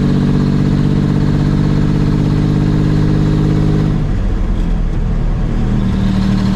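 Brockway semi truck's engine heard from inside the cab, running with a steady note; about four seconds in the note falls away and wavers for a couple of seconds, then settles into a steady hum again near the end.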